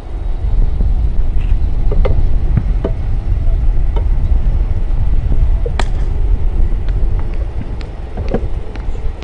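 Steady low rumble outdoors, with a few sharp knocks scattered through it, one louder knock about six seconds in.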